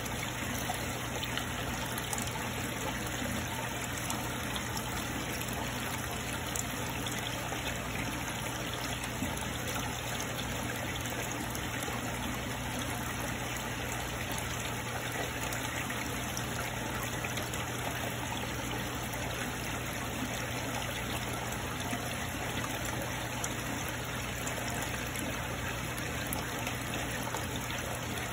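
Steady running, trickling water with a low, even hum underneath, from the pump and water circulation of a koi fry pond.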